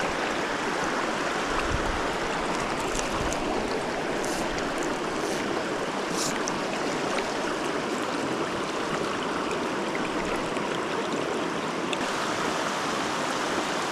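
Small mountain creek flowing over rocks: a steady rushing babble, with a few faint ticks a few seconds in.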